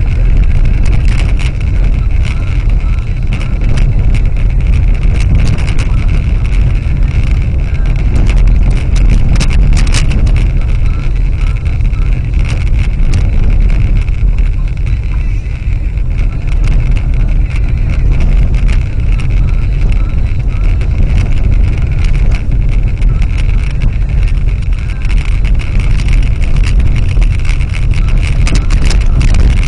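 Car driving along a gravel road, heard from inside the cabin: a loud, steady low rumble of tyres and road noise with frequent sharp clicks and knocks from the rough surface.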